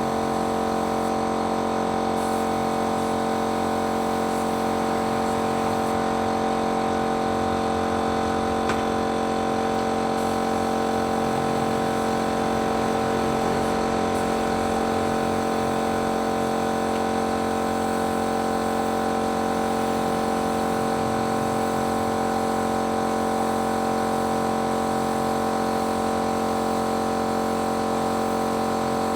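Paint-spraying machine running steadily: a constant motor hum over a hiss.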